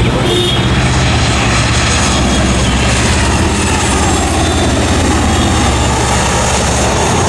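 Airliner engines running, a loud, steady rumble.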